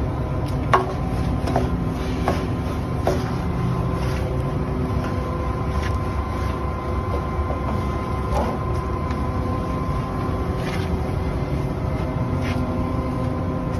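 Concrete mixer truck running steadily, a low rumble with a steady whine over it. A few sharp knocks come in the first three seconds.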